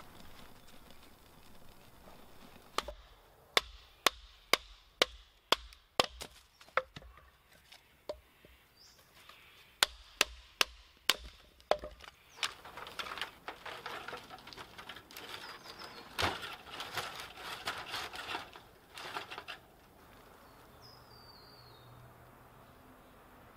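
Kindling being split on a wooden log with a blade: sharp wooden chopping knocks about twice a second, a pause, a few more, then a busier run of lighter clicks and clattering sticks.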